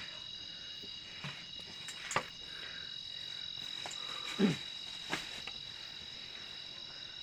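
Steady high-pitched chorus of night insects in the mountain forest, with a few sharp knocks and scuffs, the loudest about two seconds in and again about four and a half seconds in.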